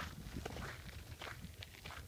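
Footsteps of a person walking on dry desert ground, a few short scuffing steps.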